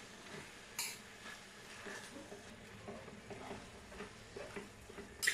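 A metal spoon stirring and scraping chicken and sliced cabbage in a stainless steel frying pan over a low sizzle, with two sharp clinks of spoon on pan, one about a second in and a louder one at the end.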